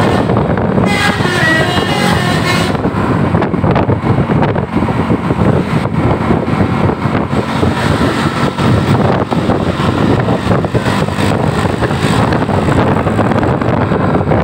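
Tour bus sounding its telolet basuri multi-tone air horns in a playful melody over loud, steady vehicle noise. The horn tune is clearest in the first couple of seconds.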